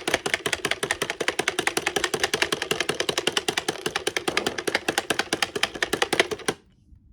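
One person clapping hands fast and steadily, about eight claps a second, as make-believe crowd applause; the clapping stops abruptly about six and a half seconds in.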